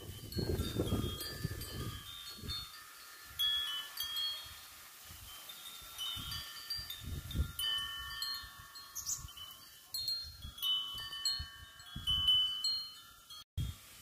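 A hanging tube wind chime ringing in strong wind, its clear tones overlapping and sounding again and again. Wind gusts rumble on the microphone in bursts, heaviest in the first two seconds, about seven seconds in and about twelve seconds in.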